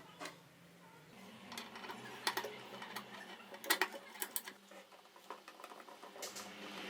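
Scattered light clicks and small metallic taps, a few sharper ones, of small parts or tools being handled, over a faint steady hum.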